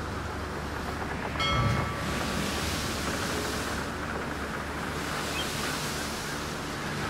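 Steady wash of ocean surf and wind, swelling and easing every few seconds. About a second and a half in comes a brief high-pitched call.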